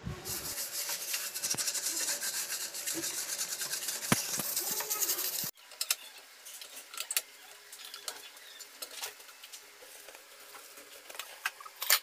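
Steel-wool scrubber rubbing back and forth over a soapy gas stovetop: a dense, rhythmic scratching. About halfway through it stops abruptly, and what follows is a much quieter cloth wiping with scattered light clicks.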